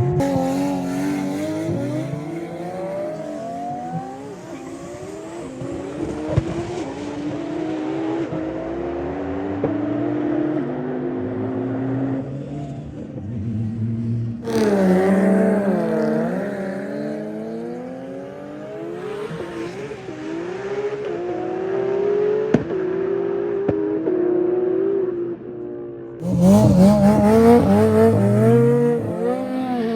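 Performance cars' engines accelerating hard through the gears, the pitch climbing and then dropping at each shift, with a few sharp cracks. The sound changes abruptly about halfway through and again near the end, where the footage cuts to other cars.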